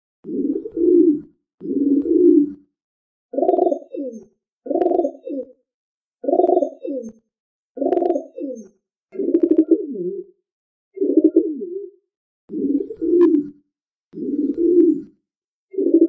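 Pigeon cooing: a series of low, rolling coos, about one every one and a half seconds, many ending in a falling note.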